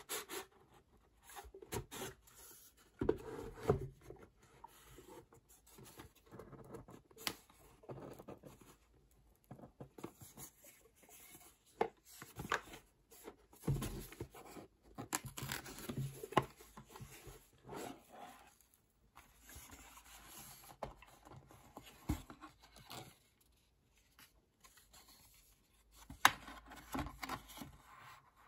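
Cardboard perfume box handled and opened by hand: irregular rustles, scrapes and soft knocks of card rubbing and sliding, with a few sharper taps along the way.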